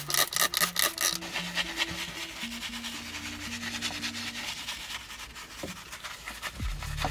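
A trigger spray bottle is pumped in several quick squirts onto a steering wheel. A soft-bristled detail brush then scrubs the foaming cleaner over the wheel's hub and spokes with a steady rubbing hiss. Faint background music plays underneath.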